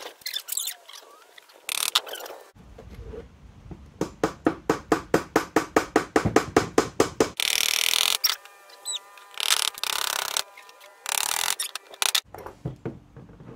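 Hammer driving a nail into a wooden birdhouse roof panel: a quick, even run of light taps, about six a second, lasting about three seconds. Several short bursts of hissing noise follow.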